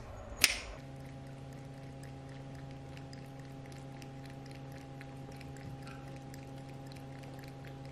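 Pet water fountain switched on with a click, its small pump then humming steadily while water pours and trickles through it.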